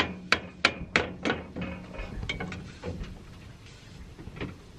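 Metal serving utensil clinking and knocking against a pan while scooping food: about five sharp clicks in quick succession, then a few fainter, sparser ones.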